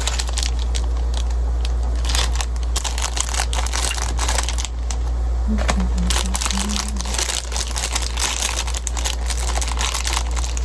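Packaging crinkling and rustling as it is handled, in dense irregular crackles over a steady low hum.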